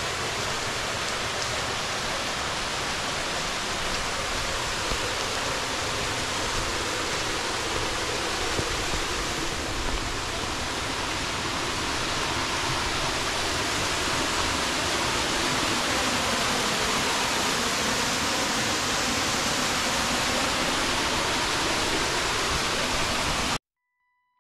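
Waterfall pouring over a rock ledge into a pool: a steady rushing of water that cuts off abruptly near the end.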